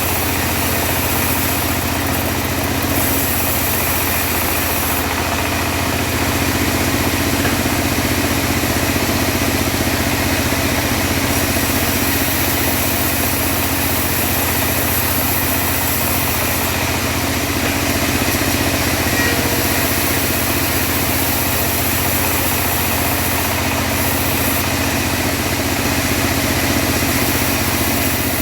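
Engine of a home-built mobile bandsaw mill running steadily while the band blade rips teak, with a high hiss that comes and goes in several stretches.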